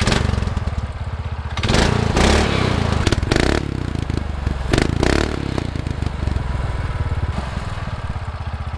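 Harbor Freight Predator 212cc single-cylinder four-stroke engine, newly swapped into a mini bike and breathing through a CR80 muffler, running just after its first start. It is revved up three times, around two, three and a half and five seconds in, then settles to a steady idle.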